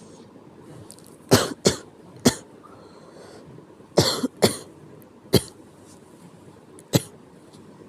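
Coughing from illness: a burst of three sharp coughs, a pause, three more, then one single cough near the end.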